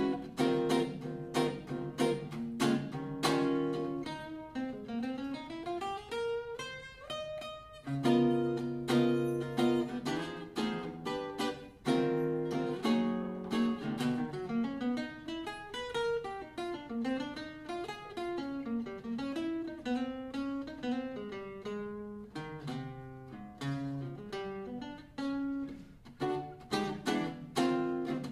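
Unaccompanied acoustic jazz guitar solo: plucked chords alternating with single-note runs, including a long climbing run about five to seven seconds in.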